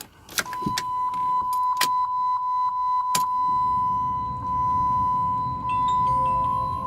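A few clicks with a steady high tone, then the 2.2 CRD diesel engine of a PT Cruiser cranks and starts about three seconds in and runs steadily at idle, its freshly replaced battery starting it.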